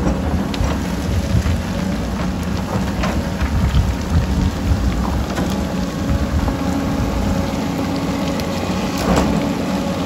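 Diesel engines of a tracked excavator and a Komatsu D85EX bulldozer running under load, over a continuous rumble with scattered knocks and clatter from rocks and earth being dug and moved.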